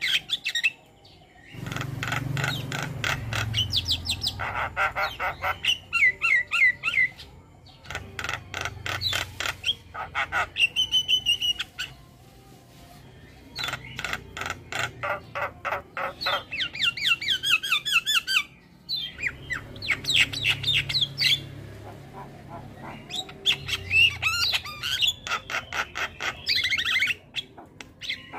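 Javan myna (jalak kebo) song: fast, harsh chattering note runs mixed with gliding whistles, in four bouts broken by short pauses.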